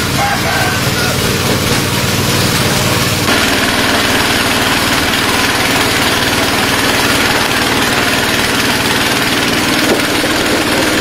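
Small petrol engine of a truck-mounted power sprayer running steadily, driving the pump that feeds disinfectant through the hose.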